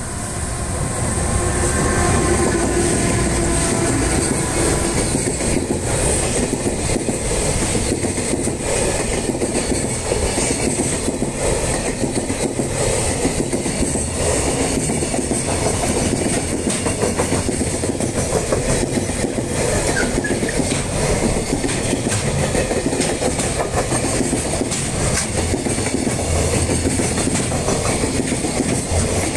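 JR Freight EH500 electric locomotive passing close by, followed by a long string of container wagons. The train runs with a steady heavy rumble and a continuous clickety-clack of wheels on the rails. The sound swells over the first two seconds as the locomotive arrives, then holds steady as the wagons roll past.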